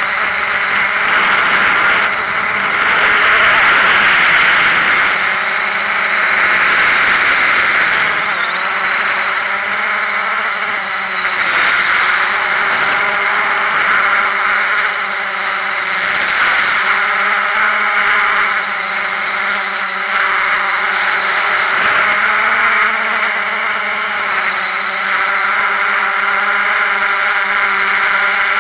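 Multirotor drone's electric motors and propellers whining steadily, the pitch wavering slightly as it flies low and comes down to land.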